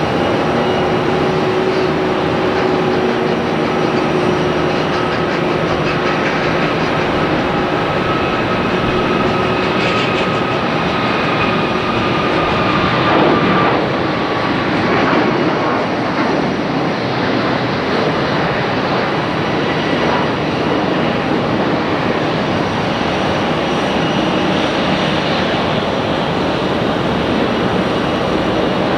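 Jet airliner engines running: a loud, steady roar with faint whining tones that slowly fall in pitch.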